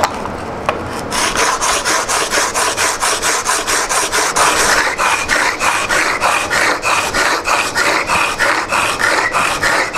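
Chisel bevel, clamped in a honing guide, rubbed back and forth on 150-grit adhesive-backed sandpaper: a gritty scraping at about four strokes a second, starting about a second in. It is the coarse-grit stage of flattening and honing the bevel.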